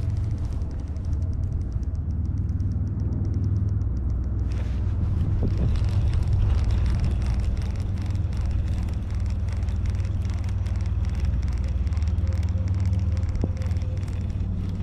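Wind buffeting the microphone, a steady low rumble, over a fast faint ticking from a fishing reel being cranked slowly during a lure retrieve.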